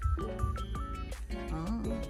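Background music: a melody of short held notes over a steady beat.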